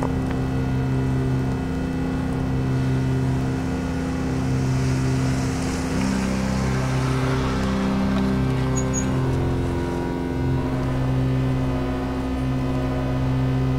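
A low, droning hum of several steady tones, with a low note that pulses on and off every second or two. A rushing hiss swells up a few seconds in and fades away again.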